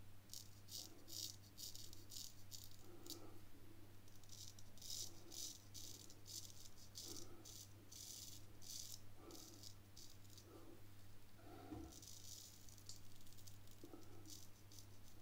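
Drew Dick 8/8 smiling straight razor scraping through lathered stubble: faint, quick crackling strokes, about four to five a second, in three runs with pauses between.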